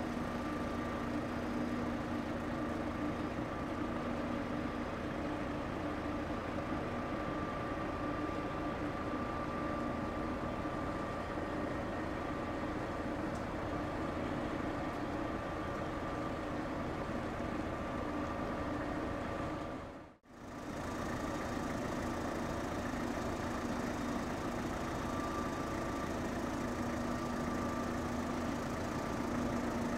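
Steady mechanical hum of the large Ro-Ro passenger ferry Suzuran's engines and shipboard machinery as it comes alongside to dock, with a few steady tones running through it. It cuts out for a moment about twenty seconds in.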